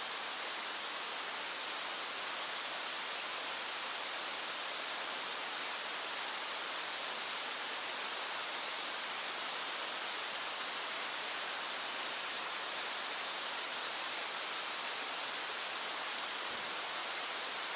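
Small stream flowing, a steady, even rush of water.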